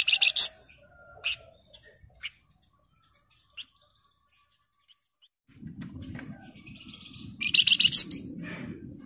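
Flamboyan songbird singing: a fast, dense rattling trill at the start, a few single chirps, then another rapid rattling trill near the end. A low rumbling noise runs underneath from about halfway.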